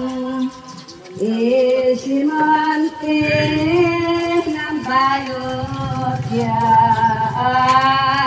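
A voice singing a slow song in long, held notes that step from pitch to pitch, with a low hum coming in underneath about three seconds in.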